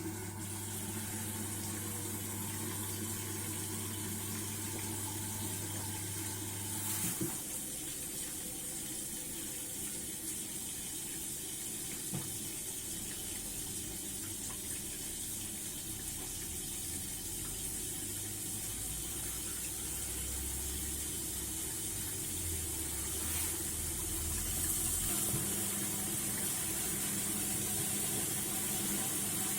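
ATLANT washing machine drawing water in, a steady rushing hiss of water filling the drum. Low machine hums run under it and change a few times: one stops about a quarter of the way in, a low rumble follows, and a new tone starts near the end.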